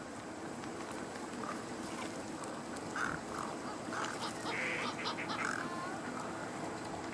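Wetland birds calling: a scattering of short calls, most of them between about three and five and a half seconds in, over a steady background noise.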